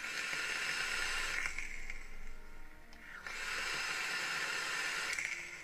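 Hiss of a long draw on an e-cigarette with a dripping atomizer, easing off after about a second and a half, then a second steady hiss from about three seconds in as a thick cloud of vapour is exhaled.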